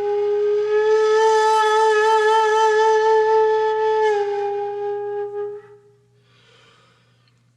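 Background music: a flute-like wind instrument holds one long, slightly wavering note, which dies away about five and a half seconds in, leaving a low hush.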